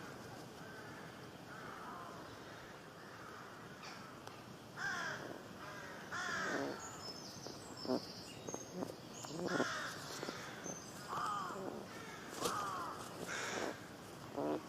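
Birds calling: quiet calls at first, then from about five seconds in a run of louder, repeated calls that fall in pitch, with higher, thinner notes over them.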